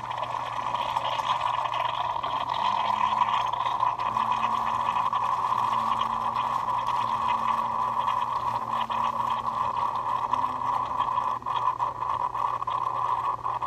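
Keurig K-Elite coffee maker brewing: a steady hiss of hot water and coffee streaming into the mug, over the low hum of the machine's pump.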